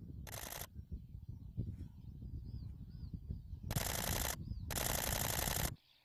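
Digital SLR camera's shutter firing in rapid continuous-shooting bursts: a short burst near the start, then two longer bursts about four and five seconds in, over a low steady rumble.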